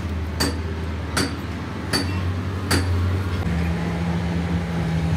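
Four light metallic clinks of metal striking metal, evenly spaced under a second apart, over a steady low machine hum; a second, higher hum tone joins just past halfway.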